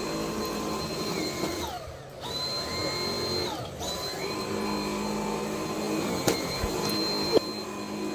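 Dyson vacuum cleaner running on carpet with a steady high whine. Its pitch dips and recovers twice as the motor is loaded, then falls away near the end. A couple of sharp knocks come from the machine being moved.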